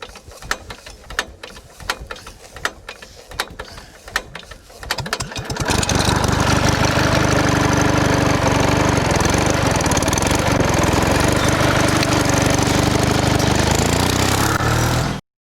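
Irregular clicks and knocks, then about five seconds in a loud, steady engine-like running noise starts and holds until it cuts off suddenly near the end.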